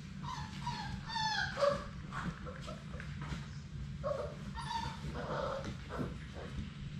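Labrador Retriever puppies whining and yipping: short, high calls that fall in pitch, one cluster about a second in and another around four to five seconds in, over a steady low hum.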